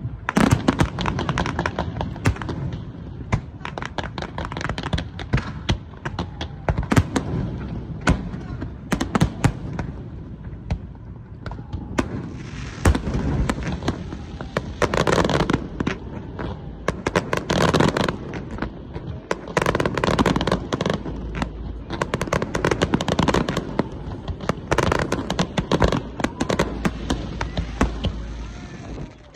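Aerial fireworks shells bursting at very close range, a dense run of sharp bangs one after another with crackling between them throughout.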